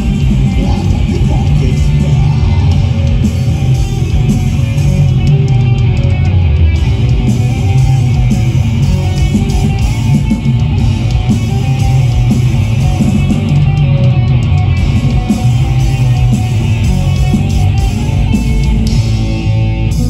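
Live black metal played loud through a festival PA and heard from the audience: heavily distorted electric guitars over bass and fast drums in a dense, continuous wall of sound.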